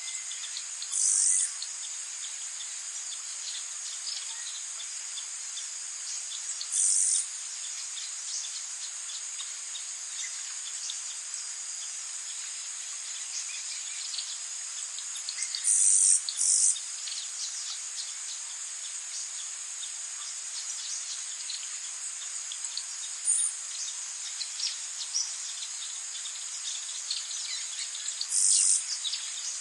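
Tropical rainforest ambience: a steady high-pitched insect drone, broken about five times by louder half-second insect buzzes, with faint scattered bird chirps.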